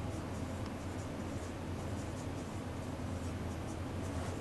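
Dry-erase marker squeaking and scratching across a whiteboard in many short strokes as words are written, over a steady low room hum.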